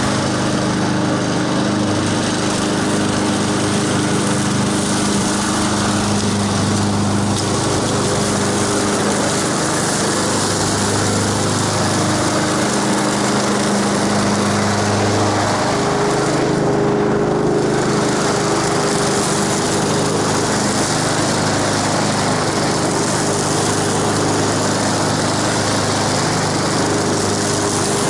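Gas-engine walk-behind rotary lawn mower running steadily while cutting grass, its engine note shifting slightly about halfway through.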